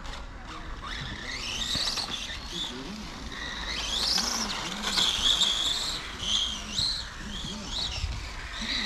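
Electric motor of a 1/8-scale ARC R8S pan car whining as it laps, the pitch rising and falling with throttle and braking; the loudest pass comes about halfway through.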